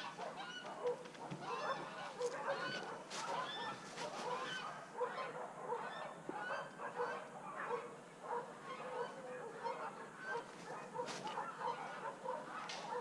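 A dense chorus of many short, overlapping animal calls, with a few sharp clicks scattered through it.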